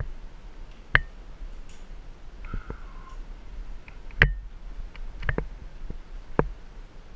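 Scattered sharp clicks and knocks, about five in all, from a tree climber's gloved hands working rope and rigging gear around a cut palm trunk, with a faint short squeak near the middle.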